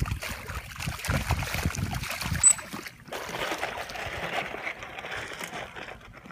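Water splashing and sloshing as a dolphin thrashes at the surface beside a dock, with a sharp knock about two and a half seconds in, then softer lapping water.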